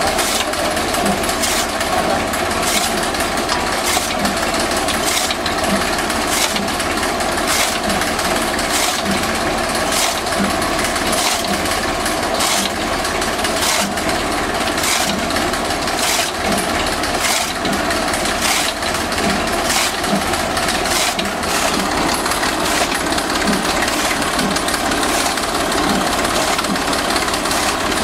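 Tractor diesel engine running steadily, turning a flat belt off its raised rear wheel to drive a chaff cutter, whose flywheel blades chop green fodder with sharp strokes at a steady beat of roughly once a second.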